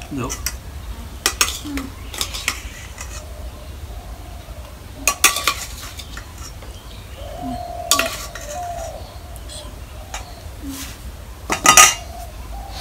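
Stainless steel bowls and plates clinking, with a spoon scraping, as fried potatoes are served onto a plate of rice. The clinks are scattered: a cluster about five seconds in and the loudest near the end.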